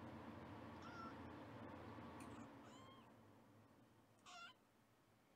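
Young kittens mewing faintly: a few short, high-pitched mews, the clearest about four seconds in.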